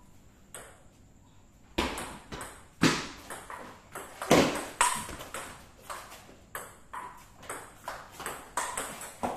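Table tennis rally: the ball clicks back and forth off the pimpled-rubber paddles and the table about twice a second, several hits with a short ringing ping, starting a couple of seconds in and stopping near the end.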